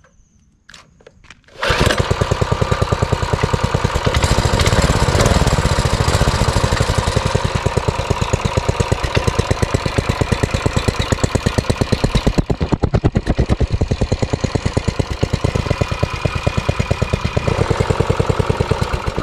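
A 200cc, 7.5-horsepower single-cylinder four-stroke general-purpose engine, the kind used on water pumps, catching about two seconds in and running through its stock muffler with a fast, even exhaust beat. It is shut off at the very end.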